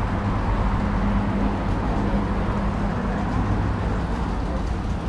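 Steady low rumble of vehicle engines, with a faint even hum underneath.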